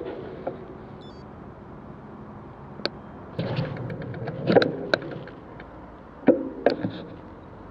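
Street traffic at a road junction: a car passing about halfway through over a steady low hum, with several sharp clicks and knocks, the loudest two close together near the end.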